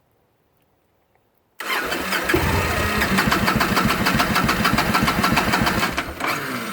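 Starter cranking a 2009 Victory Kingpin's V-twin engine with a fast, even pulsing, starting about a second and a half in and winding down after some four seconds without the engine catching: the bike is hard-starting when hot, after a ten-minute stop.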